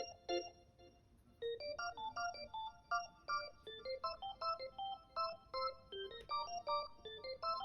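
Background music: a light melody of short, separate electronic notes, pausing for about a second near the start before picking up again.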